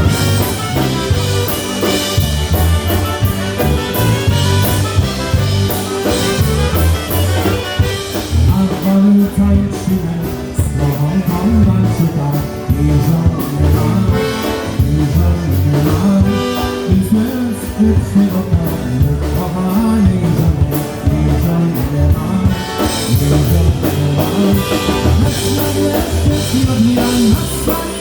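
Live polka band playing an oberek, a fast Polish dance tune, with drum kit.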